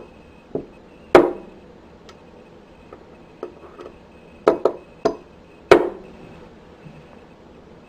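Rubber mallet striking a lock-cap capping tool, a series of sharp, irregularly spaced taps, the loudest about a second in and near six seconds, driving the caps down onto the pins and springs in a lock core annex. The taps are lighter than a real capping job needs.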